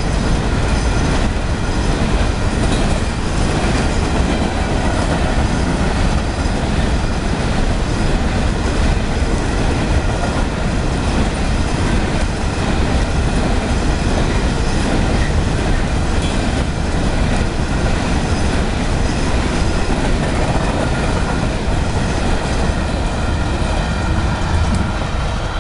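CSX freight train's coal hopper cars rolling past at a grade crossing, a loud steady rumble of steel wheels on rail that falls away near the end as the last car clears.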